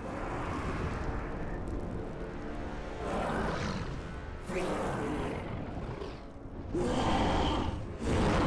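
Film sound mix of a deep, steady rumble of a huge fire, with a giant ape's growls swelling four times, the last two loudest, over music.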